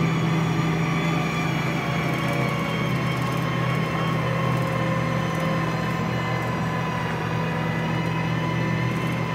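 A vehicle's engine running steadily, heard from inside its cab: a continuous low drone with a faint steady whine above it.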